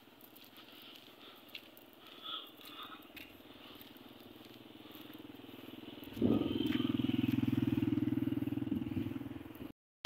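A motor vehicle's engine starts up loud about six seconds in with a short rise in pitch. It runs steadily for about three seconds, then fades and cuts off. Before it there is only faint background sound.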